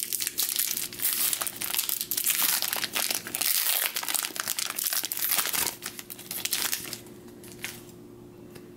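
Foil booster pack wrapper crinkling and tearing as it is pried open by hand, a pack that is hard to open; the crinkling stops about seven seconds in, leaving a faint steady hum.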